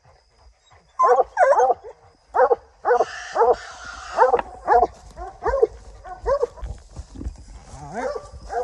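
Coonhounds barking treed at the base of a tree: a steady string of short barks, about one or two a second, the sign that the dogs have something up the tree. A rustle of brush and leaves comes in about three seconds in.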